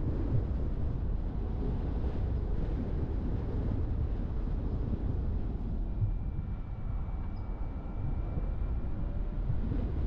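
Car driving along: a steady low rumble of tyre and wind noise, with a faint thin whine that comes in about six seconds in and fades out near the end.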